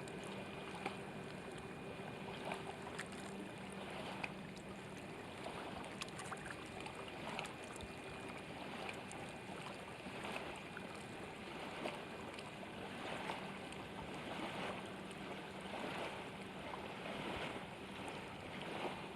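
Faint steady hum of a distant boat motor over water lapping, with scattered light ticks.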